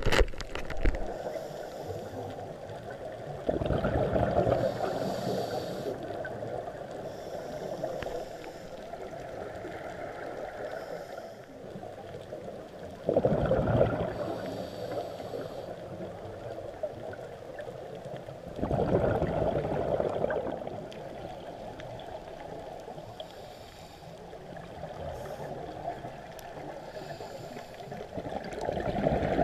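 Underwater sound of scuba divers' exhaled bubbles rushing and gurgling, heard muffled through an underwater camera. It comes in four louder surges several seconds apart over a steady low wash of water.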